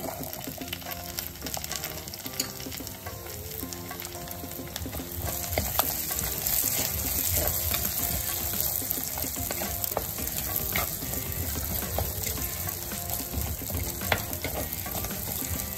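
Shallots, garlic and green chillies sizzling in hot oil in a clay pot, stirred with a spatula that scrapes and knocks against the pot. The sizzle grows louder about five seconds in.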